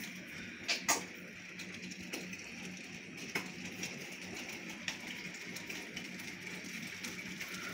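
Hailstones falling over a roof with a steady hiss, a few striking close by as sharp, scattered clicks.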